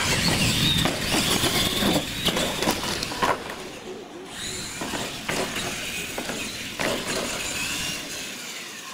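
Electric R/C monster trucks racing. The motors and gears whine as they start off suddenly, and the tyres rumble on concrete. Several sharp clacks come as the trucks hit and land off the plywood ramps, and one truck tumbles over.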